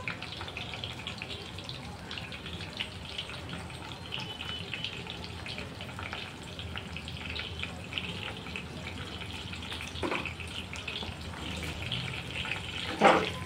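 Arrowroot-coated soya chunks deep-frying in hot oil in a kadai, a steady crackling sizzle. A sharp knock about thirteen seconds in, with a fainter one just after ten seconds.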